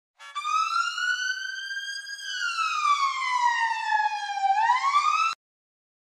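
Police-style siren wail: one electronic tone rises slowly, falls over about two seconds, then sweeps back up quickly before cutting off abruptly about five seconds in.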